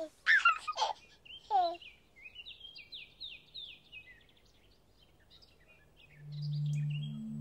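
Birdsong: a few loud downward-sliding calls, then a quick run of short falling chirps. About six seconds in, a low steady two-note musical tone swells in.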